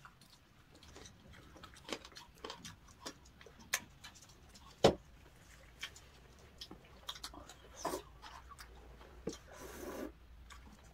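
Eating sounds: quiet chewing and small clicks of chopsticks against plastic dishes, with one sharper tap about five seconds in.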